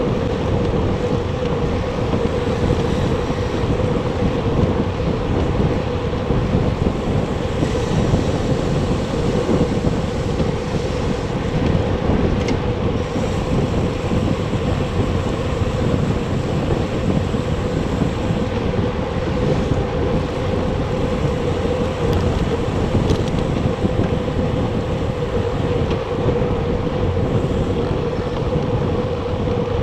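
Steady wind buffeting the microphone of a bike-mounted action camera while riding a recumbent bicycle at speed, with a steady hum underneath.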